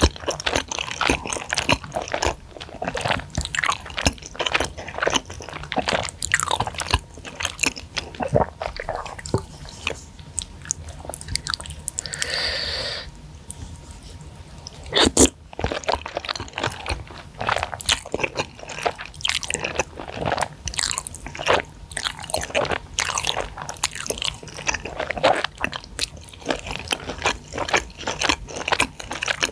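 Close-miked chewing of spicy flat rice noodles in chili broth, with many small wet mouth clicks and smacks. About twelve seconds in comes a slurp of about a second, and a few seconds later a single sharp click.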